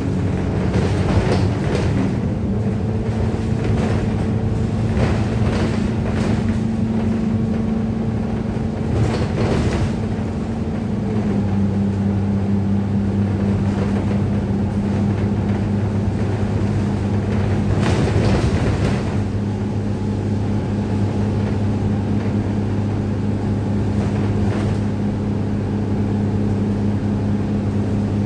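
Alexander Dennis Enviro 200 bus, with its 6.7-litre diesel engine, heard from inside the passenger saloon while on the move: the engine runs steadily under road noise, and its note drops a little about eleven seconds in. A few knocks and rattles from the bus body come through over the road.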